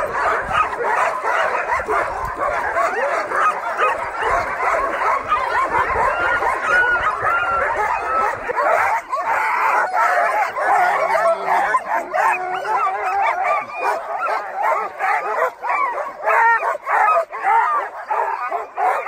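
A team of harnessed sled dogs barking, yipping and whining all at once in a loud, unbroken chorus: the excited noise of dogs on the gangline eager to run.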